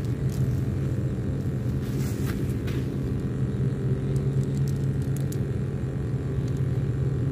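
A steady low rumble throughout, with a few faint light rustles or clicks a couple of seconds in.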